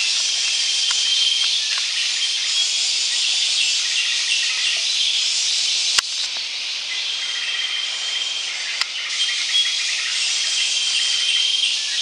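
A loud, steady chorus of forest insects buzzing, with a sharp click about halfway through.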